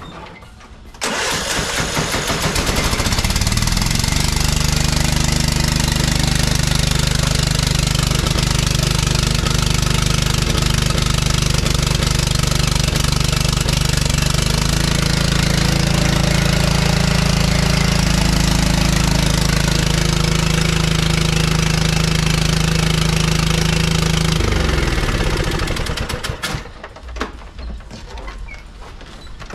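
John Deere LT155 lawn tractor engine starting about a second in and running steadily, speeding up around the middle as the tractor climbs onto ramps, then shutting off and winding down a few seconds before the end, followed by a few knocks. The engine is running with its mounting bolts missing, so it shakes about in the frame.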